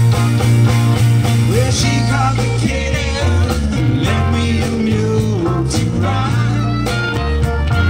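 Live blues-rock band playing: drum kit, electric bass and electric guitar with keyboard, under a wind-instrument lead line that slides in pitch.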